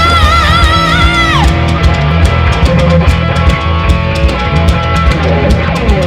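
Rock band playing loud live: a high held note with wide vibrato slides down in pitch about a second and a half in, then drum kit and crashing cymbals drive on over distorted guitar and bass.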